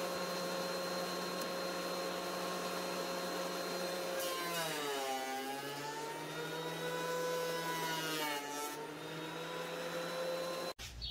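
Benchtop thickness planer running with a steady whine. From about four seconds in, its pitch sags and then climbs back over some four seconds as the cutterhead bogs under load, planing an end-grain wenge board flat. The sound breaks off abruptly near the end.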